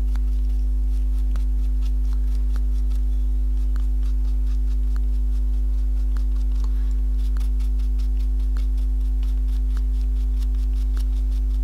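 Steady electrical hum, a strong low drone with a higher steady tone over it, and faint scattered ticks on top.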